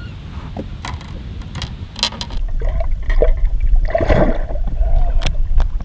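Water splashing and dripping in short, irregular bursts, over a low rumble that grows louder about two and a half seconds in.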